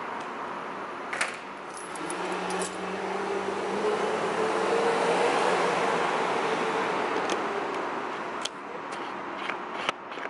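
A vehicle passing, its engine and tyre noise swelling over a few seconds and then fading, with a faint rising engine tone. A few light clicks and key jingles sound over it, the loudest about a second in.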